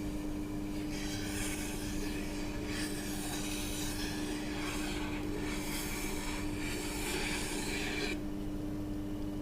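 Tormek T8 wet grinder's motor humming steadily while a kitchen knife blade scrapes against the turning wheel in repeated strokes. The scraping stops about eight seconds in, leaving only the motor hum.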